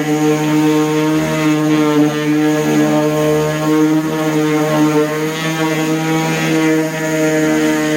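DeWalt palm orbital sander running steadily with a 3M Cubitron II sanding disc, sanding cedar wood: a steady motor whine that wavers slightly in pitch as the sander is worked over the wood.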